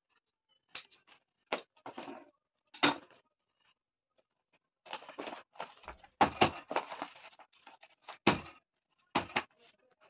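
Irregular rustles, taps and a few heavier thumps as a jute bag with a clear plastic window is handled, turned and pressed flat on a worktable, with short silent gaps between them.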